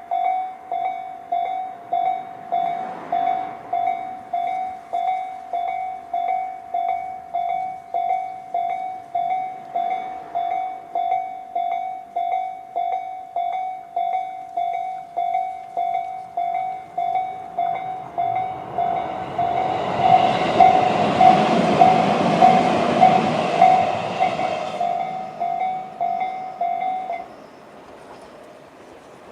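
Electronic level-crossing warning bell of the Tobu 'sound C' type, slow-tempo version, dinging at an even slow beat. About two-thirds of the way in a Tobu 20400-series electric train passes through the crossing, its running noise swelling over the bell for several seconds. The bell stops shortly after the train has gone.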